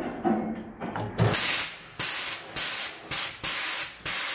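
Compressed air hissing from a tire machine's inflation line into a low-profile tire: a run of short blasts, then a steady hiss as the tire is aired up.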